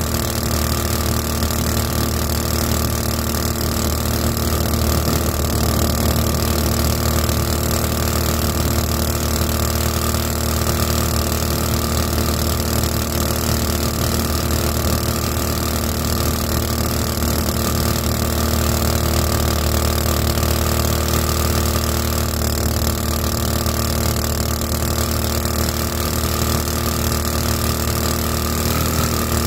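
The "224" boat motor running steadily at a constant cruising speed, driving a 7-inch two-blade prop on a flat-bottom jon boat. The pitch stays even throughout, with a slight change just before the end.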